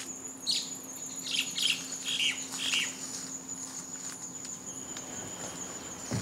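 Birds calling, about five short falling chirps in the first three seconds, over a steady high-pitched insect trill.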